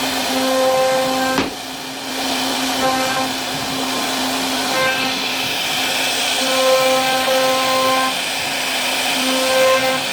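CNC router spindle running and cutting into wood: a steady motor whine over a cutting hiss, its overtones swelling and fading as the cutting load changes. There is one sharp click about a second and a half in, followed by a short dip in level.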